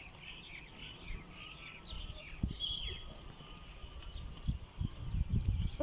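Birds chirping over and over in short, high, falling notes, with low thumps and rumble on the microphone that grow louder near the end.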